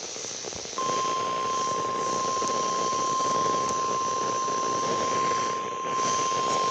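NOAA Weather Radio 1050 Hz warning alarm tone, sounding for the Emergency Alert System required monthly test. It comes in suddenly about a second in and holds one steady pitch over a constant hiss of radio static.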